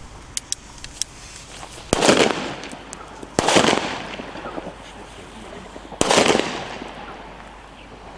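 Three Katan Super Böller firecrackers going off one after another, about two seconds in, a second and a half later, and near six seconds in. Each is a sharp bang with a short fading echo, and a few small ticks come before the first.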